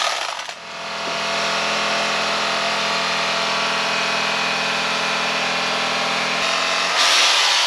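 Electric carving knife running steadily, its motor buzzing as the reciprocating blades cut lengthwise through 4-inch-thick upholstery foam. About six and a half seconds in the buzz changes and turns to a louder hiss.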